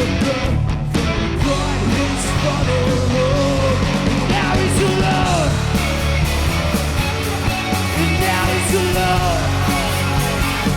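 Punk rock band playing a song, with sung and yelled vocals over the full band.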